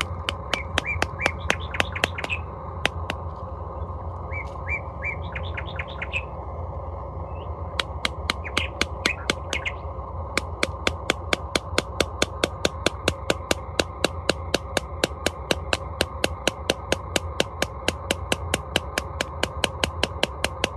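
Birds chirping in short bouts, with sharp, evenly spaced knocks at about four a second that run steadily through the second half.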